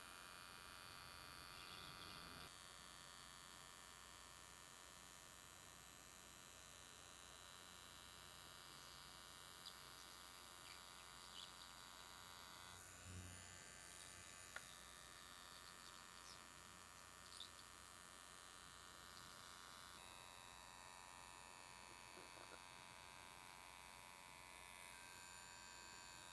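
Near silence: an ultrasonic skin spatula buzzing faintly and steadily as its blade is drawn over wet facial skin, with a soft low bump about halfway through.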